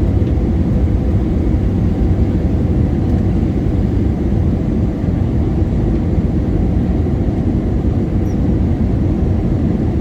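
Steady low rumble of an Airbus A321ceo airliner in flight, jet engines and airflow heard without a break, as on the approach to landing.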